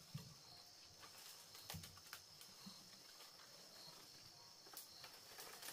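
Near silence: faint, steady high-pitched chirring of insects, with a few soft scattered knocks.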